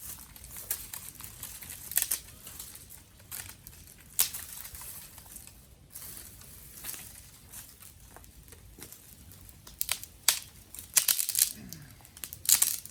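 Dry twigs and sticks crackling and snapping: irregular sharp cracks that come thicker and louder in the last few seconds.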